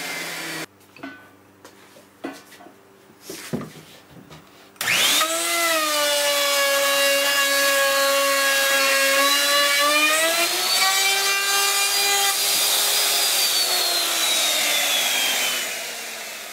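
Electric router with an edge-guide fence: a few knocks as it is handled, then about five seconds in the motor starts with a quickly rising whine and runs steadily as it cuts along a plywood panel. It rises in pitch and is switched off, its whine falling away as it winds down near the end.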